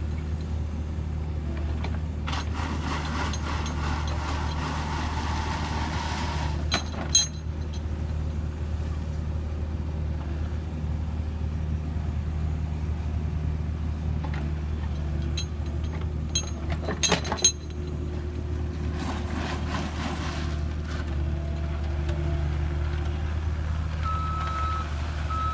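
Diesel engine of a Cat 304 mini excavator running steadily while it works, with sharp metallic clanks about a quarter and two-thirds of the way in. A backup alarm starts beeping near the end.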